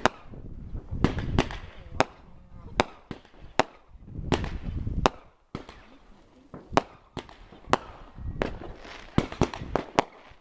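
Consumer fireworks going off: small aerial shells bursting in a quick, irregular string of sharp bangs, about two a second, with a low rumble between them.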